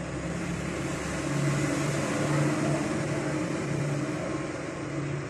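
Steady low mechanical hum over a rushing background noise, swelling slightly in the middle.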